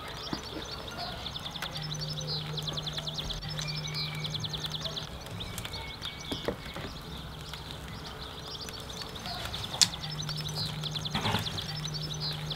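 An animal calling with a rapid, high, pulsing trill in two long runs of a few seconds each, over a low steady hum, with a few sharp knocks in between.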